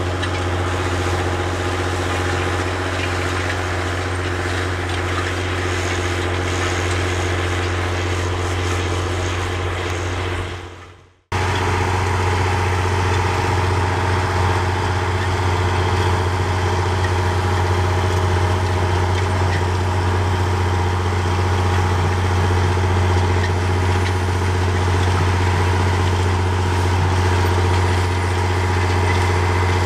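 John Deere 7020 four-wheel-drive tractor's six-cylinder diesel running steadily under load as it pulls a tandem disk. The sound fades out about eleven seconds in, then cuts back in abruptly at the same steady pitch.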